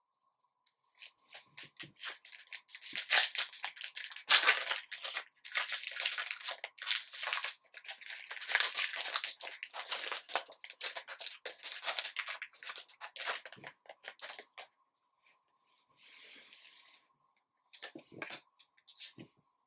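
A foil trading-card pack wrapper being torn open and crinkled by hand, a dense run of crackling and ripping from about a second in until about fourteen seconds. A few soft taps and slides of cards being handled follow near the end.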